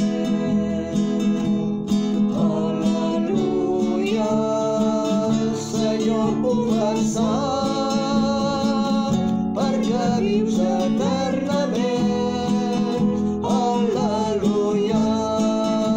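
A hymn sung with acoustic guitar accompaniment.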